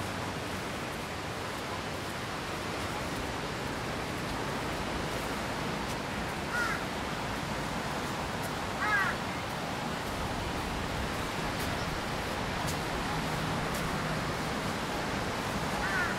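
A bird giving three short calls, spaced a few seconds apart, the last near the end, over a steady rushing background noise.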